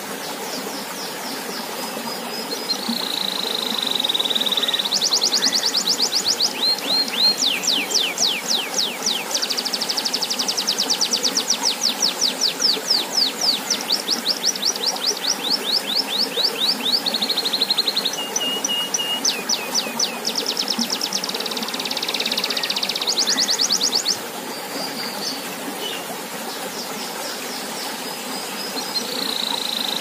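Domestic canary singing a long song of fast trills and rolling repeated notes, strongest through the middle and easing off a few seconds before the end, over the steady splash of a fountain spout pouring into a pond.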